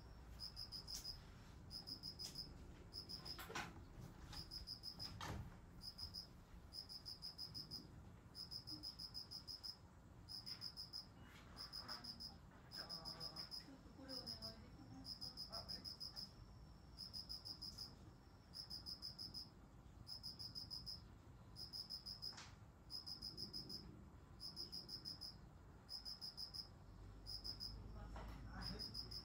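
An insect chirping steadily in short, high-pitched pulsed trills, about one a second; faint. A few soft knocks come in between.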